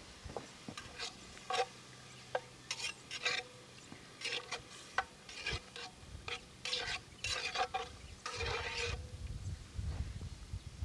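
A metal utensil scraping and clinking in a metal pot, about a dozen short stirring strokes, some leaving a faint ring from the pot.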